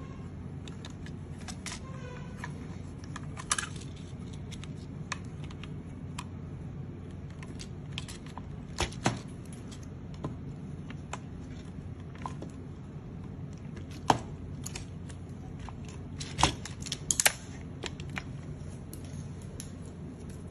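Plastic parts of a transforming robot figure's leg clicking and tapping as they are handled and fitted together. Scattered sharp clicks and lighter ticks play over a steady low hum, with the loudest clicks about three quarters of the way in.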